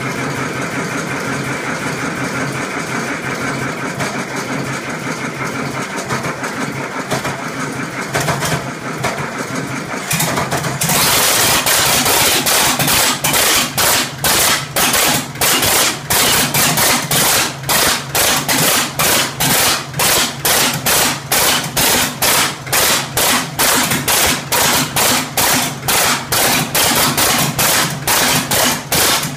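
The Waukesha 310 diesel engine of a 1967 Oliver 1750 tractor being started after an overhaul. A steady sound for about ten seconds, then the engine catches and runs with a loud, regular knock a little over twice a second, its injection timing off.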